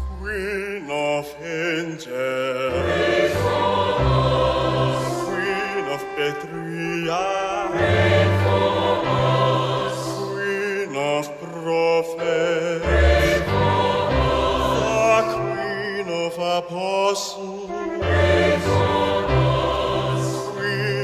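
Choral singing with vibrato over sustained low bass notes that change every second or two.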